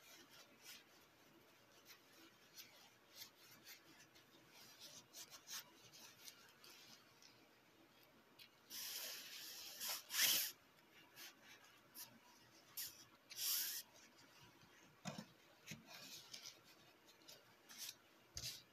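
Faint rubbing and rustling handling sounds with scattered light clicks. Two louder scraping rubs come about halfway through and again a few seconds later.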